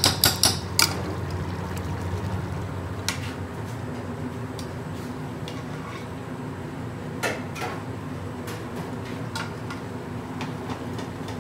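Steady hum of a commercial kitchen extractor hood over a pot of rice and water simmering on a gas stove, with a few sharp knocks of metal utensils and pans, the loudest in the first second.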